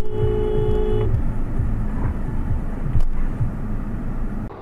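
Car driving with a steady low road and engine rumble. A two-note car horn sounds for about a second at the start, and a sharp thump comes about three seconds in.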